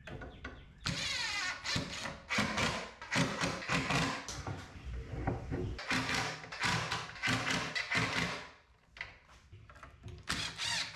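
Cordless drill-driver driving screws into plywood cabinet panels, in repeated bursts of a few seconds with a short pause near the end.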